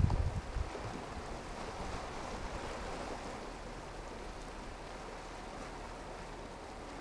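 Small sea waves washing over shore rocks, a steady rush. A burst of low wind rumble on the microphone in the first half second is the loudest part.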